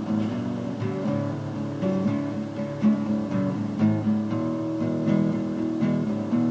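Guitar strummed in a steady rhythm, a blues tune with an accented stroke about once a second and the chords changing as it goes.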